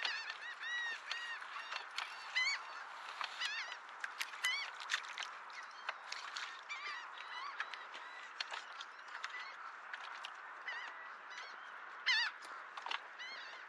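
A flock of birds calling, many short calls that rise and fall in pitch, several a second and overlapping, over a steady hiss. The loudest calls come about two and a half seconds in and again near the end.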